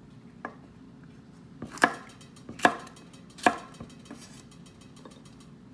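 Kitchen knife chopping a pepper on a cutting board: three sharp strikes about a second apart near the middle, with a few lighter taps before and after.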